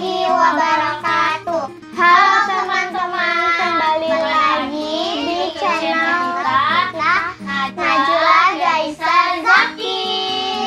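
Young voices singing together over background music with a steady backing.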